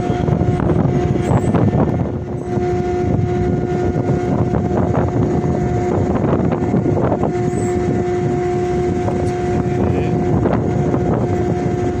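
Ship's deck machinery running: a steady, loud mechanical drone with a humming whine on top that cuts out briefly a few times.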